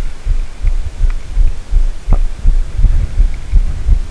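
Irregular low thumps, several a second, of handling or wind buffeting on a wearable camera's microphone while a spinning reel is worked to play a fish.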